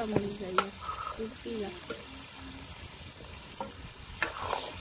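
Fish pieces sizzling in hot oil in a steel kadhai, stirred with a steel ladle that clinks against the pan several times.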